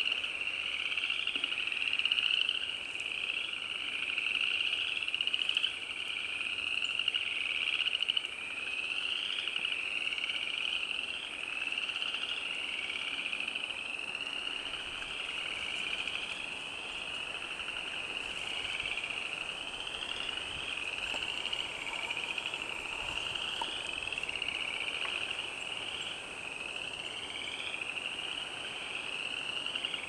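A dense chorus of frogs calling: many shrill, rising calls overlapping without a break.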